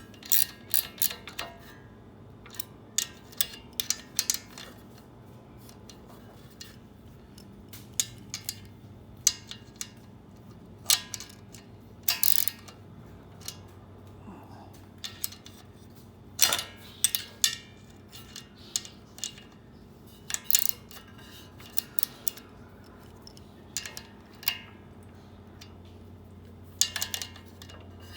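Wrenches and sockets clicking and clinking irregularly against metal engine parts while the overhead valves of a small gas engine are adjusted and reassembled.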